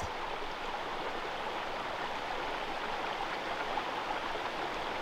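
Small rocky mountain creek running: a steady rush of flowing water.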